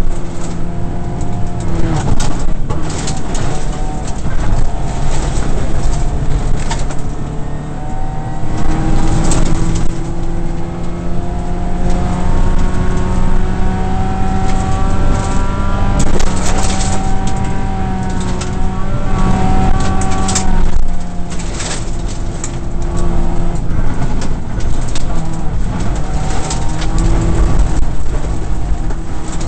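Subaru rally car's flat-four engine heard from inside the cabin at full throttle, the revs climbing and dropping again and again through the gear changes. Gravel crackles and pings against the underside of the car throughout.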